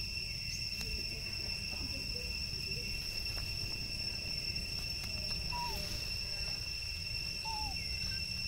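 Steady drone of insects calling in two unbroken high pitches, over a low constant rumble. Two faint short chirps come through a little past halfway and again near the end.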